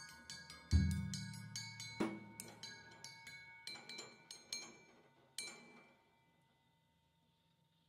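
Brass-shelled Schagerl drum kit played sparsely in a free jazz improvisation: ringing metallic cymbal strokes, a deep drum hit about a second in that is the loudest sound, and a few scattered strikes. The playing stops about five and a half seconds in and the ring fades away.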